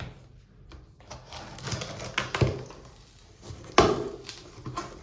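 A cardboard shipping box being unpacked by hand: rustling packing and a series of knocks as the boxes inside are handled and lifted out. The sharpest knock comes about four seconds in.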